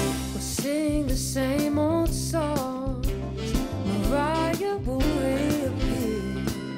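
Upbeat Christmas pop song playing: a sung vocal melody with vibrato over a steady bass line.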